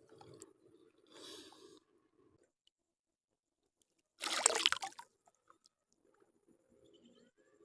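A short splash in water, about half a second long, roughly four seconds in, amid soft, scattered wet handling noises.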